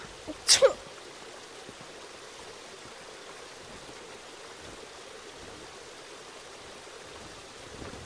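One short sneeze, then the steady, even rush of running water from a garden waterfall.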